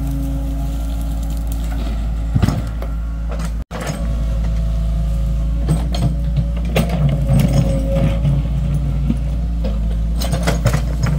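Mini excavator's diesel engine running steadily under load, with a hydraulic hum and scattered metallic clanks and knocks as the bucket and boom work the soil.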